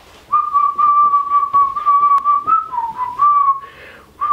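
A man whistling, mostly holding one high note with a brief dip down and back up midway, breaking off about three and a half seconds in and starting again near the end.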